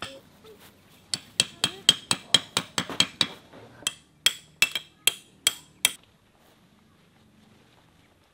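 Tent peg being hammered into the ground: a run of sharp metallic taps, quick at first and then slower, stopping about six seconds in.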